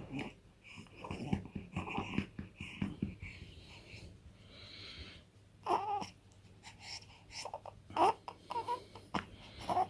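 A newborn baby making short grunts, breathy sounds and brief whimpers during burping, irregular, with a few higher-pitched little cries in the second half.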